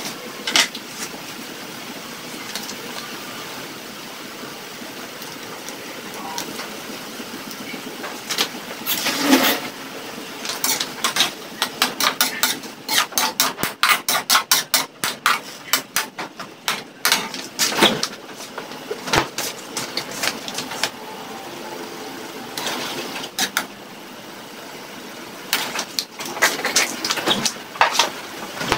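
Ground pork sizzling in an aluminium wok, with a slotted metal spatula scraping and knocking against the pan in quick strokes as it is stirred. The stirring runs through the middle third and starts again near the end, over a steady frying hiss.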